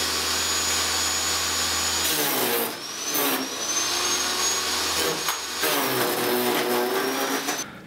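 Electric garden branch shredder running under load as a thick branch is fed in and chopped. Its high motor whine drops in pitch as the blades bite, about two seconds in and again near six seconds.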